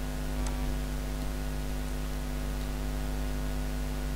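Steady electrical mains hum with a buzzy stack of tones over a faint hiss, with one faint click about half a second in.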